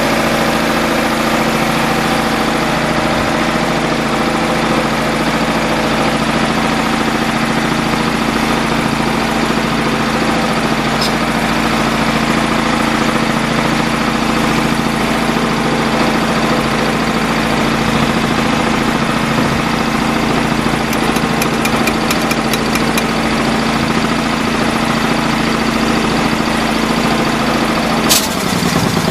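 Engine-driven portable air compressor running steadily at a constant speed. Near the end there is a sharp click and the engine note dips briefly.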